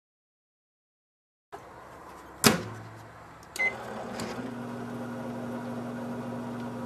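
Microwave oven being started: the door shuts with a sharp clack, a short keypad beep follows about a second later, and the oven then runs with a steady low hum. The first second and a half is dead silent.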